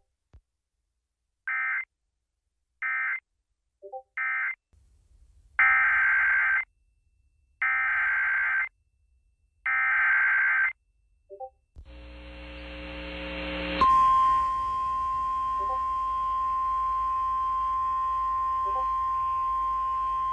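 Emergency Alert System data tones, as sent on NOAA Weather Radio: three short, harsh digital bursts (the end-of-message code), then three longer, louder bursts (the SAME header of the next alert). A rising hiss follows, then the steady single-pitch 1050 Hz warning alarm tone, which starts near the end and keeps going.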